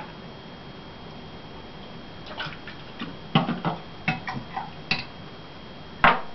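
Bottles and a metal spirit measure handled on a kitchen counter: a run of light clicks and knocks, then one sharper knock about six seconds in.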